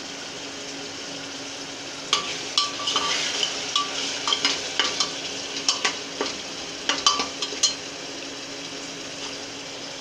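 Tomato-onion masala sizzling as it fries in oil in a pressure cooker. About two seconds in, a perforated metal spoon starts stirring it, scraping and clinking against the pot for about six seconds.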